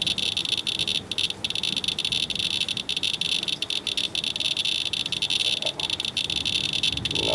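Radalert Inspector Geiger counter clicking very rapidly, a dense stream of high chirps that runs together into a steady buzz. It is counting about 3000 counts per minute from a rain-swipe sample, around 91 times background radiation.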